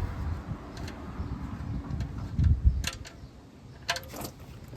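Ratchet and 14 mm socket working the oil drain bolt loose: a few sharp metallic clicks and clinks, with low knocks from handling the tool.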